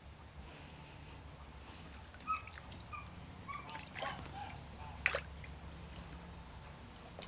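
Pet pig sloshing and splashing about in a tub of water, with sharper splashes about two, four and five seconds in. Faint short high calls come in between the splashes.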